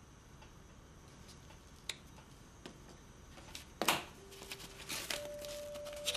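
Quiet kitchen handling sounds as oil is poured from a bottle into an empty pot: a few light clicks and one sharper knock about four seconds in. Soft held music notes come in near the end.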